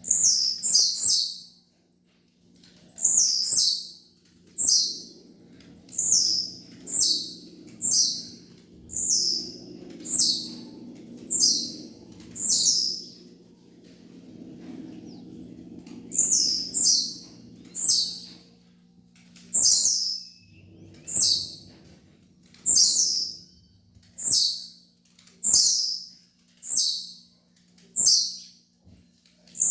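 Blue-black grassquit (tiziu) singing its short high song note over and over, each note falling in pitch, about once a second with a pause of a few seconds midway.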